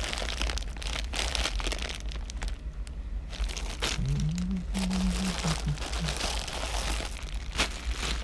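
Crystal bead necklaces being rummaged through and handled in a bin: a dense, continuous run of small clicks, rattles and crinkling.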